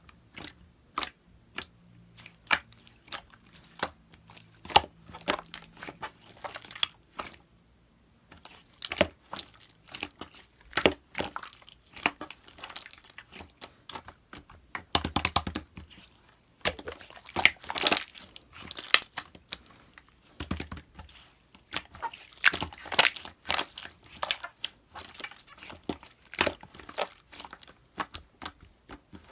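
Clear slime with green glitter being mixed and worked by hand, giving a rapid, irregular run of sharp pops and clicks with denser crackling flurries.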